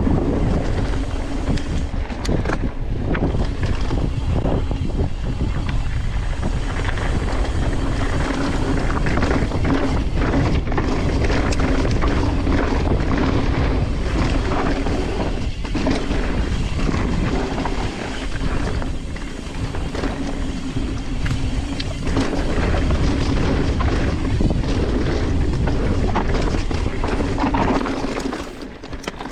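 Loud trail and wind rumble of a mountain bike ride picked up by the on-bike or rider's camera, under background music with one steady held note. It starts suddenly and eases off near the end.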